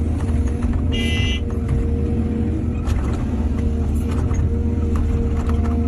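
Excavator's diesel engine running steadily, with scattered light knocks and a short high squeal about a second in.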